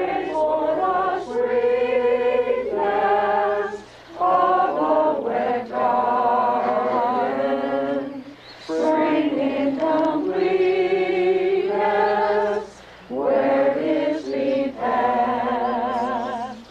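A congregation singing a hymn together in sustained phrases, with a short breath between lines about every four seconds.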